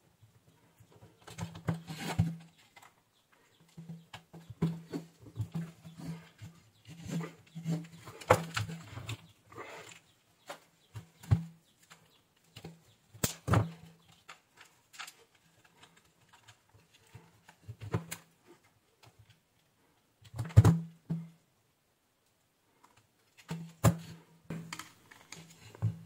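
Hands handling a hair dryer's power-cable wires and opened plastic housing: irregular rustles, scrapes and small clicks in clusters with short pauses, the loudest cluster about 20 seconds in.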